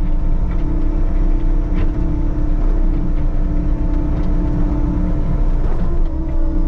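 Diesel engine of a compact construction machine, a track loader or mini excavator, running steadily under work with a low rumble and a constant hum, which dips briefly near the end.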